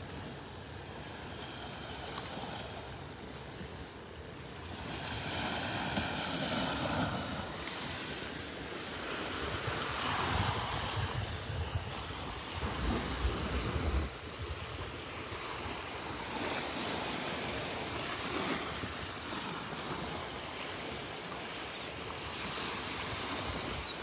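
Small waves washing onto a shell-covered beach, the surf swelling and fading several times. Wind gusts on the microphone, strongest about halfway through.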